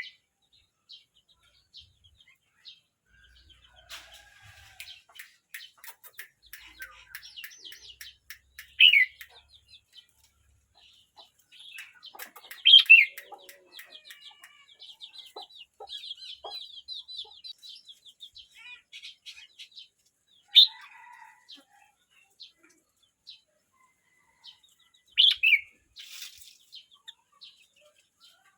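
A young red-whiskered bulbul singing: several loud, short phrases that slide down in pitch, with quieter rapid twittering between them.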